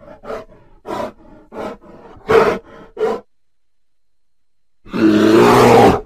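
A bear giving a series of short grunts, about two a second, the loudest about two and a half seconds in. After a pause of well over a second it lets out a long, loud roar near the end.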